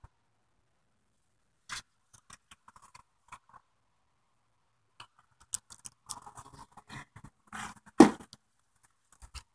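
Handling noise from a phone carried inside a knit sweater: scattered rustles and clicks of fabric rubbing over the microphone, busier in the second half, with one loud thump about eight seconds in.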